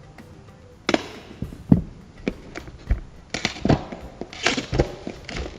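Metal bicycle hand tools being handled and set down: a series of irregular knocks and clinks.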